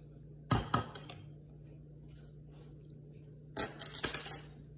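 Two sharp knocks on the kitchen counter about half a second in, then a loud crinkling rustle near the end as a plastic bag is picked up and handled.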